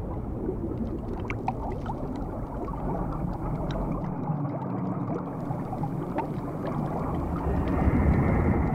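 Underwater ambience sound effect: a dense, low, muffled wash of water with scattered small bubbling pops.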